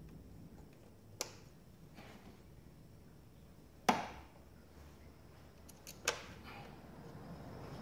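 Sharp clicks and knocks of parts and tools being handled in an engine bay: three louder ones about one, four and six seconds in, the middle one loudest with a short ring, plus a couple of faint ticks.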